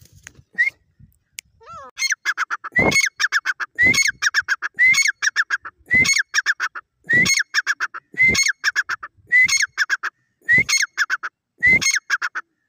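Grey francolin (dakhni teetar) calling: after a couple of single notes, it breaks into a loud repeated call about once a second, each phrase a rising note followed by a quick run of shorter notes, about ten phrases in all.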